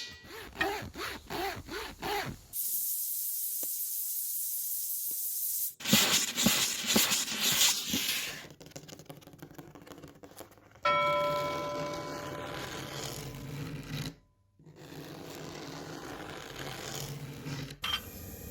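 A series of short, contrasting sounds: an irregular pulsing, then a steady hiss that cuts off, a dense crackle of clicks, and a struck bell-like chime that rings and fades, followed by a short silence and a softer rustle.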